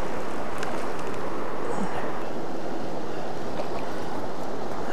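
Steady rushing of a rocky creek flowing over stones and riffles.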